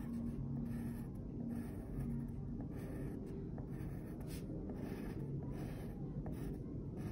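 Pencil scratching on paper, tracing letters in short separate strokes.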